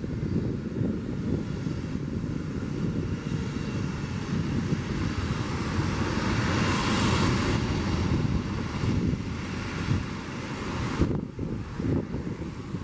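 Jet engines of a taxiing Boeing 757-200: a steady rumble and hiss that swells about six to eight seconds in, then eases.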